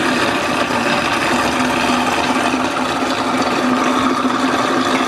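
Hamilton Beach blender motor running steadily at low speed, blending chopped dark chocolate as hot cream is poured in through the lid opening.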